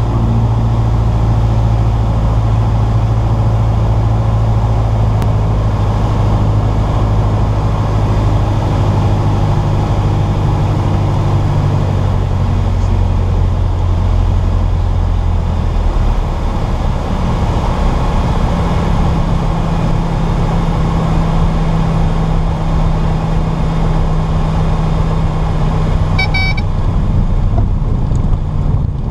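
Piper PA-28's piston engine and propeller heard from inside the cockpit during a landing, with wind and airframe noise. The engine note drops around 12 s and again around 16 s as the power comes back for the flare and touchdown. A brief high tone sounds near the end.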